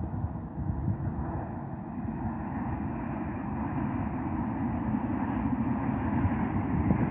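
Renfe Class 112 AVE high-speed train passing across a viaduct, heard as a steady rushing rumble that slowly grows louder as it comes nearer.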